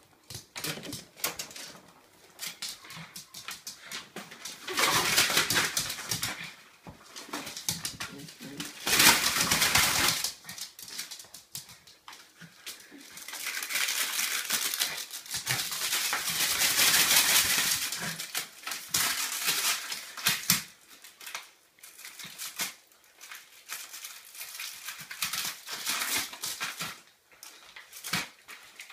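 Small dog ripping and shredding paper mail: paper tearing and crinkling in several bursts, the longest a few seconds near the middle, with claws clicking on a laminate floor in between.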